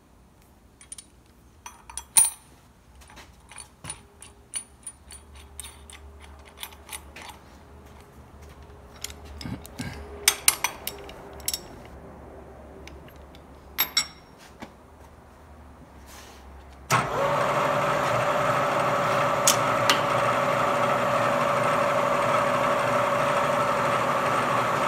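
Ratchet wrench clicking and steel parts clinking as a hold-down bolt is tightened on a milling machine table. About two-thirds of the way through, a Bridgeport milling machine starts up suddenly and runs with a steady, loud hum.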